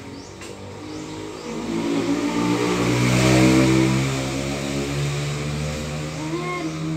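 A motor vehicle passing on the road. Its engine grows louder from about a second in, is loudest around the middle, then fades away.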